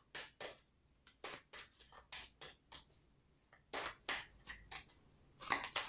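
A deck of tarot cards being shuffled by hand: short papery slaps and swishes at an uneven pace, with quicker flurries about four seconds in and near the end.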